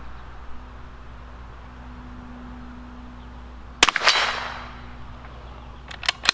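Bergara B-14 .22 LR bolt-action rifle firing a single shot about four seconds in, the report trailing off in a short echo. Near the end, two quick clicks as the bolt is lifted and drawn back to cycle the next round.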